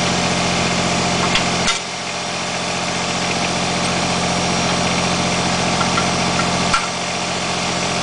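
Kubota BX24 tractor's three-cylinder diesel engine idling steadily. A sharp click comes about two seconds in and again about seven seconds in, and after each one the engine's low sound briefly drops away before coming back.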